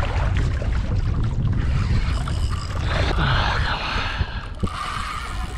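Wind buffeting an action-camera microphone on open ocean, with water washing along a kayak hull; a brief louder hiss about three seconds in.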